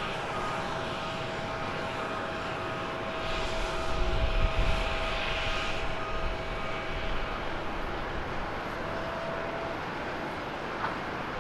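Japan Airlines Boeing 787-8 jet engines on the landing roll: a steady rush with a thin whine, swelling with a low rumble and a louder hiss about four seconds in, then easing off. In the last couple of seconds a fainter, steadier jet noise from a Skymark Boeing 737-800 on the runway takes over.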